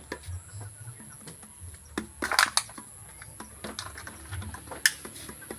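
Irregular light clicks and knocks, with a quick cluster of them a little over two seconds in and one sharp click near the end.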